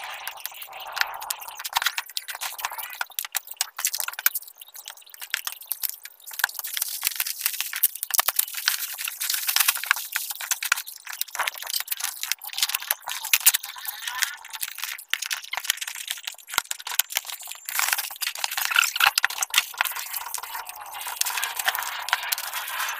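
Irregular clicks, clinks and rattles of metal tools and parts being handled, with occasional sharper knocks.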